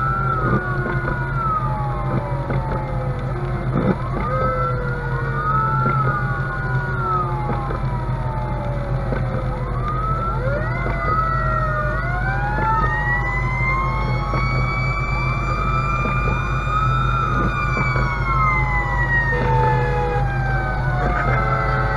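Fire engine siren wailing in repeated, overlapping cycles, each rising to a held pitch and then falling slowly, heard from inside the cab. A steady low engine drone runs underneath.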